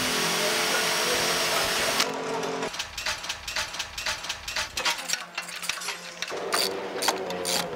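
DeWalt cordless drill whining steadily as it bores through a body panel, cutting off abruptly about two seconds in. Then irregular metallic clicks and rattles of an engine crane and its chain as a race-car engine is hoisted out for an engine change.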